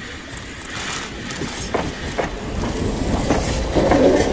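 KTM-23 tram running along the track, growing louder as it approaches, with a few sharp knocks from the running gear in the first half.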